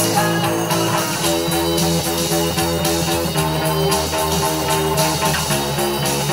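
Fender Precision bass played fingerstyle along with a rock backing of electric guitars; the notes change steadily in a continuous groove.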